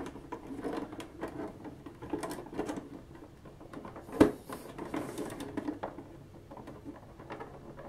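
Small plastic clicks and rubbing as a 3D-printed plastic windshield frame is handled and tabbed into a plastic toy vehicle body, with one sharper click about four seconds in.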